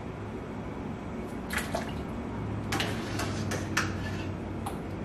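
Metal spoon clinking several times against a cooking pot while potatoes are scooped out of boiling water, with water dripping and splashing off the spoon. The sharp clinks start about a second and a half in, over a steady low hum.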